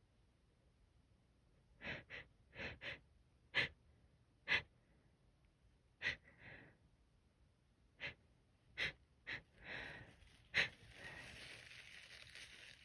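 A person's hitching breaths as a sneeze builds and is held back: about a dozen short, sharp catching breaths at uneven intervals, then a longer drawn-out breath near the end.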